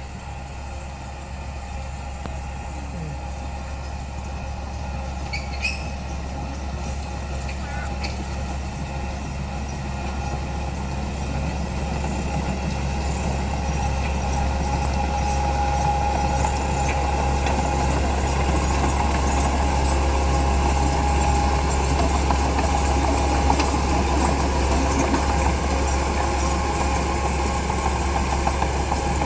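Komatsu D31P bulldozer's diesel engine running steadily with a deep drone, growing louder through the middle and then holding.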